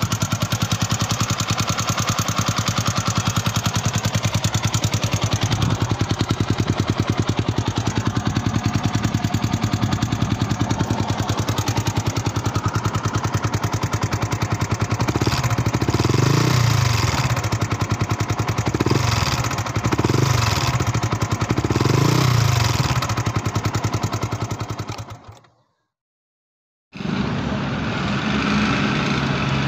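Yamaha Sniper 150 single-cylinder four-stroke engine running with a loud, rapid clatter from the valve train, 'like a jackhammer'. A sign of far too much exhaust valve clearance. The throttle is blipped several times past the middle, then the engine stops.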